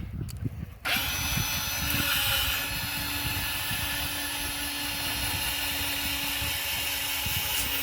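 Mighty Mule automatic gate opener's electric motor and drive arm starting up about a second in and running steadily with a whine.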